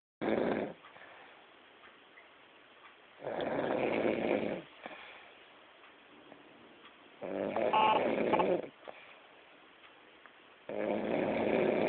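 Loud snoring, four snores at a slow, regular pace, one every three and a half seconds or so, each lasting about a second, with quiet gaps between.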